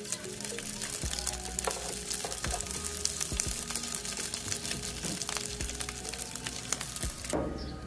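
Sausage rings sizzling and crackling in hot oil in a nonstick frying pan, over background music. The sizzle stops abruptly near the end.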